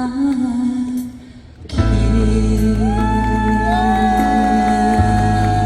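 A woman's sung note trails off about a second in. After a brief lull, loud backing music comes in with a sustained full chord, a deep bass and one long held melody note.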